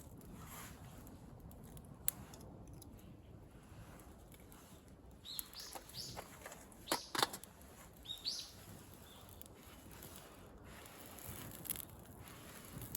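A few short bird chirps, rising and falling, between about five and nine seconds in. About seven seconds in come a couple of sharp snaps or knocks, the loudest sounds, all over a faint steady outdoor background.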